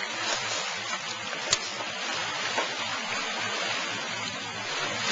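Steady rushing water noise, with a sharp knock about one and a half seconds in and a fainter one a second later.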